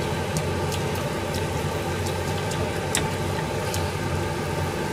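Steady low mechanical hum, like a kitchen fan, with a pan of nishime simmering. A metal ladle clicks sharply against the pan a few times.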